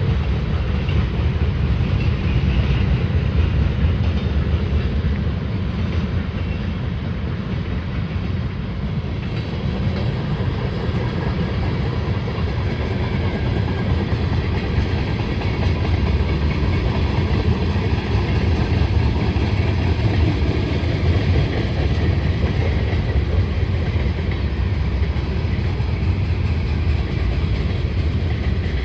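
Freight train cars rolling past on the rails: a steady, even noise of wheels on track, heaviest in the low end.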